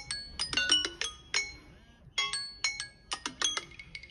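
Two smartphones' timer alarms going off at once after the countdown has run out: overlapping ringtone melodies of bright, chime-like struck notes in quick runs, with a short pause near the middle.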